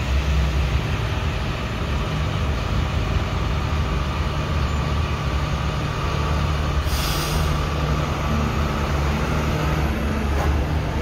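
Caterpillar tracked excavator's diesel engine running with a steady low drone as the machine digs soil with its bucket. A short hiss comes about seven seconds in.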